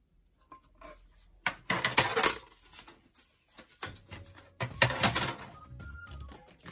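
Hard plastic diorama wall and window panels handled and pressed together by hand: clicks and clatter in two bursts, about one and a half and about four and a half seconds in.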